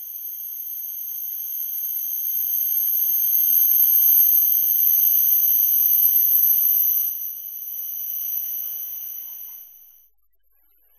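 Hokuriku Shinkansen train pulling into the platform and braking to a stop: a steady high-pitched whine over faint rolling noise. It grows louder as the cars pass, drops about seven seconds in and dies away as the train halts near the end.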